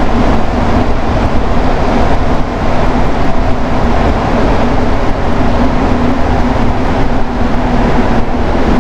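Rubber-tyred Montreal metro train running between stations, heard from inside the car: a loud, steady rumble and rush with a constant hum.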